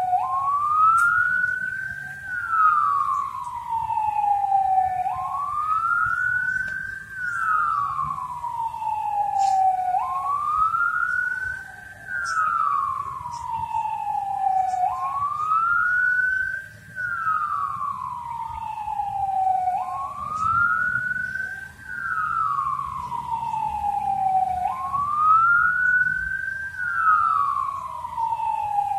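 A wailing siren whose pitch rises over about two seconds and slides back down over about three, in a cycle that repeats about every five seconds. It is the signal for the three-minute halt in all activity at 10:17 that commemorates the Proclamation of Indonesian Independence.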